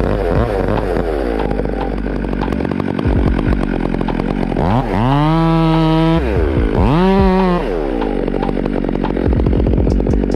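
Stihl MS 362 two-stroke chainsaw running at lower speed, then opened up to full throttle twice: about five seconds in for over a second, and again about seven seconds in, more briefly.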